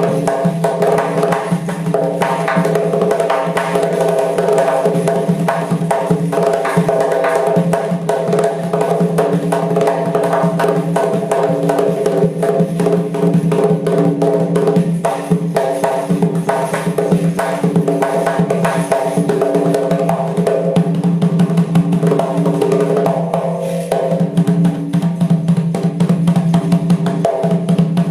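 Doira, the Uzbek frame drum, played in a fast, continuous rhythm of dense strokes over a steady ringing tone.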